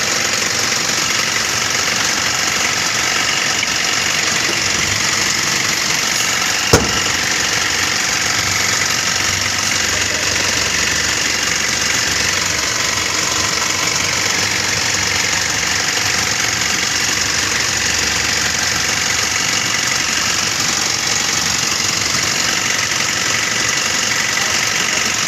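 Tata Ultra T.16 truck's diesel engine idling steadily, with one sharp click about seven seconds in.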